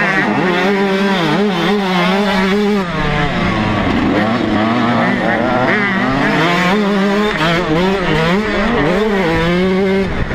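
TM 125cc two-stroke motocross engine revving hard under race throttle, its pitch rising and falling again and again as the throttle is opened and shut; it drops away about three seconds in and climbs back a second later.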